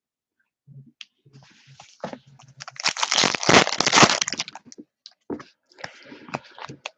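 Clear plastic wrapper of a trading-card pack crinkling as it is torn open and crumpled by hand. It starts about a second in, is loudest midway, and goes on more softly near the end.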